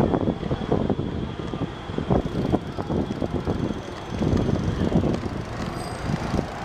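Wind buffeting the microphone of a camera carried on a moving bicycle, an irregular low rumble that swells and fades in gusts.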